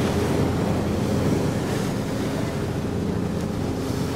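Wind buffeting the microphone over the rush of sea water along the hull and the steady low hum of the boat's engine.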